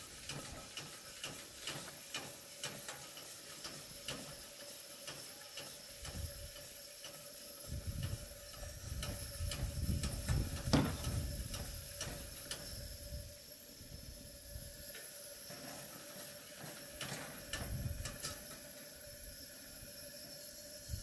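Coleman dual-fuel camp stove burning on unleaded gas, a steady hiss from the pressurised burner while it warms up with yellow, flaring flames. Scattered sharp clicks come through, the loudest near the middle, along with bouts of low rumble from wind on the microphone.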